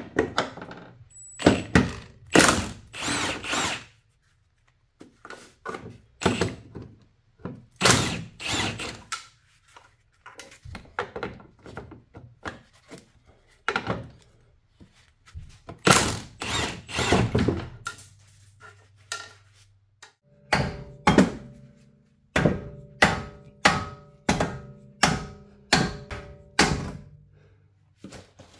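Mechanic's tools and steel suspension parts being worked on during a strut replacement: a string of irregular knocks and thunks, ending in a faster, regular run of strikes about two a second.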